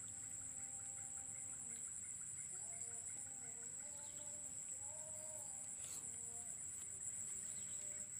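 Faint, steady high-pitched chirring of insects, with soft distant voices in the middle.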